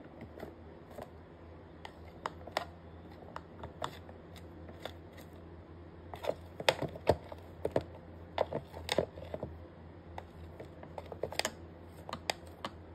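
Scattered light clicks and taps, irregular and bunched most densely around the middle, over a low steady hum.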